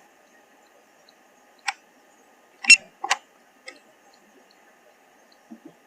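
A handful of sharp, irregularly spaced clicks, the loudest about two and a half seconds in, over a faint steady electronic hum.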